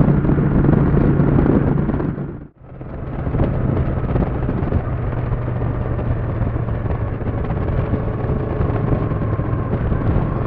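Honda Shadow Aero 750 V-twin running steadily at cruising speed with wind rush. About two and a half seconds in, the sound dips out briefly at an edit, then the same engine drone returns.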